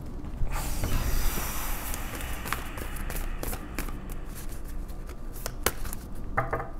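A deck of divination cards being shuffled by hand: a steady papery rustle with many quick clicks as the cards strike one another.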